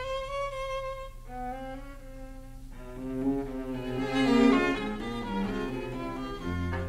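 Violin playing a slow andante melody in long held notes: a high note first, then lower notes with a fuller sound from about three seconds in.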